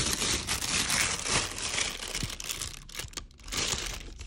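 Plastic wrapping crinkling and rustling as it is pulled off a speaker packed in a cardboard box, easing briefly about three seconds in before resuming.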